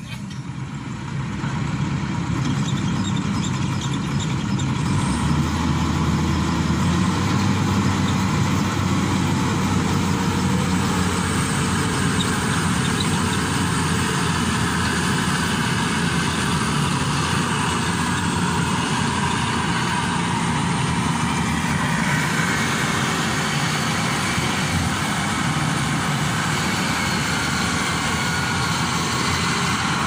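Rice combine harvester running steadily while cutting and threshing standing rice, a dense continuous machine sound that comes up about a second in and holds even.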